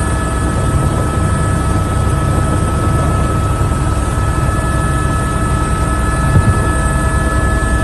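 Helicopter running steadily: a fast rotor beat with a steady high turbine whine over it.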